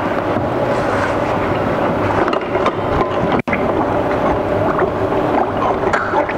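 Steel brewery fittings being scrubbed with a brush and swished by hand in a plastic tub of peracetic acid cleaning solution: water sloshing and splashing with scattered light knocks, over a steady machine hum.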